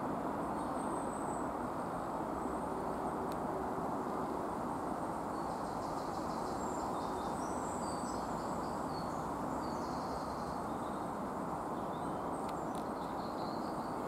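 Steady low rumble of a Great Western Railway Class 165 diesel multiple unit running away along the line under power, with small bird or insect chirps high above it.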